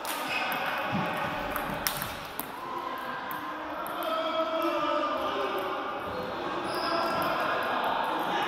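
Table-tennis ball clicking off bats and table in a rally, with the last sharp hit about two seconds in. Then murmuring voices as play stops between points.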